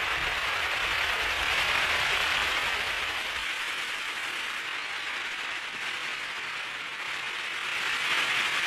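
Audience applauding steadily, growing a little louder near the end.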